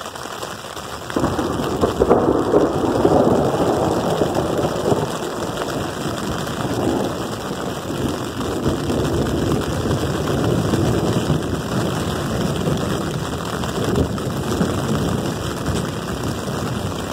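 Close thunder: a rumble that breaks in suddenly about a second in, is loudest over the next couple of seconds, then rolls on, swelling again several times.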